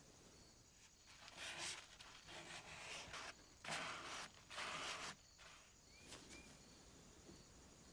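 A crumpled paper towel wiping a rusty steel scissors blade: four rubbing swipes of paper over metal in the first five seconds.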